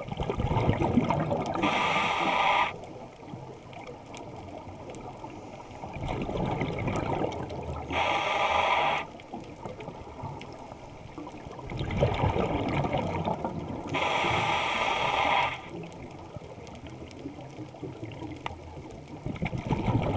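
Scuba regulator breathing heard underwater through the camera housing, in a slow cycle about six seconds long. Each cycle is a gurgling rush of exhaled bubbles followed by a hiss of about a second from the demand valve on the inhale, three times over.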